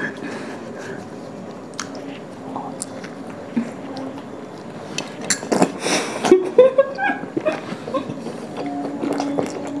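Two people chewing big mouthfuls of rumali roti, with scattered wet mouth clicks. Around the middle come a few louder clicks and short muffled vocal sounds through full mouths.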